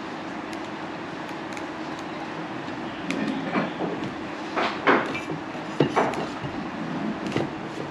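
Steady background noise with a faint low hum, and a few light knocks and clatters between about three and six seconds in.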